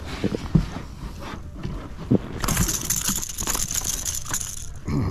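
Knocks and rustling as a freshly landed speckled sea trout is grabbed and handled on a plastic kayak deck, with the lure's treble hooks still in its mouth. About halfway through, a steady hiss lasting around two seconds covers the handling noise.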